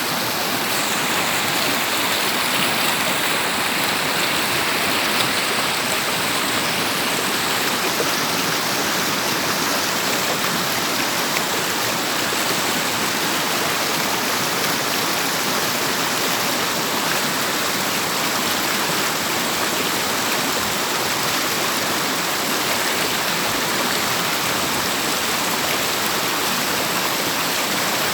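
River water rushing and splashing in a steady, continuous flow.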